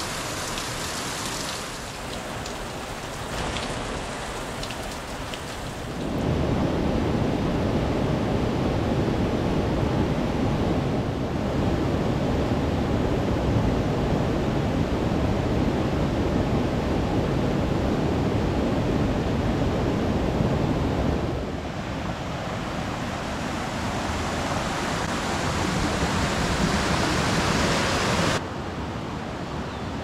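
Water falling and splashing down a rock face, then from about six seconds in the louder, fuller rush of a mountain stream pouring over rocks. The sound shifts abruptly twice more near the end, still flowing water.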